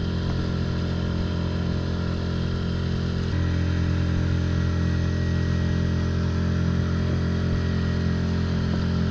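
Small boat motor running steadily on an inflatable boat under way, picking up slightly in speed about three seconds in.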